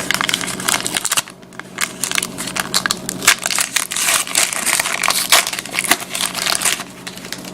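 Trading-card pack wrappers being torn open and crinkled by hand: a dense run of crackling, with a brief lull a little after the first second.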